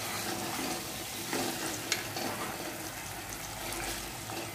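Marinated chicken and masala sizzling in oil in a clay pot while being stirred with a steel spoon, with a couple of sharp clinks of the spoon against the pot. The chicken is being sautéed until the masala coats it and the oil separates.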